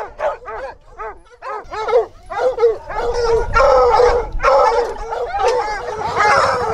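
Pack of hog-hunting dogs, pit bull-type among them, barking and yipping in quick repeated barks. The barking grows denser and louder from about three seconds in as more dogs overlap.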